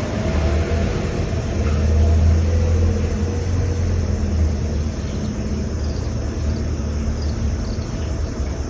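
A passing motor vehicle's low engine rumble and hum, swelling to its loudest about two seconds in, then easing off.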